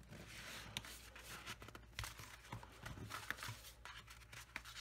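Faint rustling and scraping of card stock as small paper inserts are slid into a paper pocket, with a few light taps of card against card.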